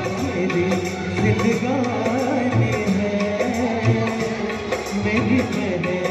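Male singer singing live into a handheld microphone over a backing music track with a steady beat, played through a PA loudspeaker. His sung melody comes in about a second in and wavers in pitch.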